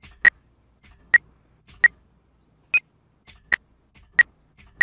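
Short electronic beeps, one every 0.6 to 0.9 seconds, each marking a press of the F key in Blender; the beep in the middle is slightly higher. Faint clicks come between them.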